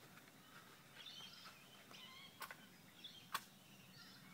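Near silence: quiet outdoor ambience with faint bird chirps and two sharp faint clicks in the second half.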